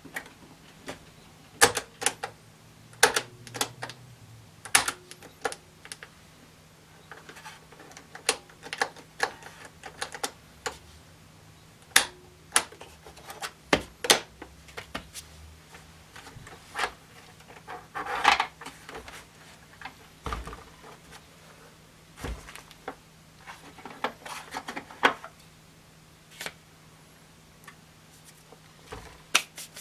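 Irregular mechanical clicks and knocks, a few dozen spread unevenly, from the controls of a Panasonic RS-466S boombox being worked: switches and cassette-deck keys. A faint steady low hum runs under them.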